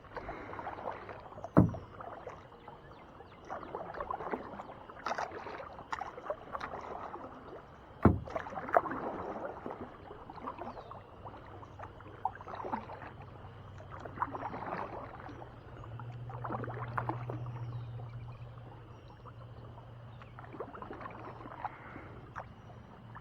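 Kayak paddle strokes in the water, a splashing swell every second or two, with two sharp knocks, about one and a half seconds in and about eight seconds in. A low steady hum comes in during the second half.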